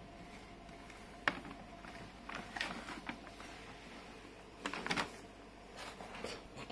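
Brown paper bag rustling and scraping in short spells as a cat climbs with the bag's handle caught around its neck, with a single sharp tap about a second in.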